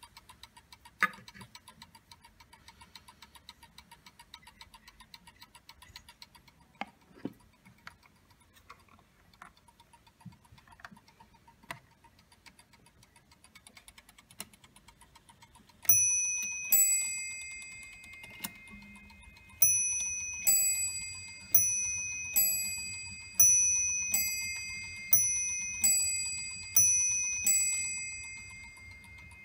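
Eight-day pendulum bracket clock ticking quickly and steadily, with a few knocks and clicks as its hands are turned by hand. Past halfway it starts striking: two ringing strikes, a short pause, then a run of about nine more, a bit under a second apart, each dying away.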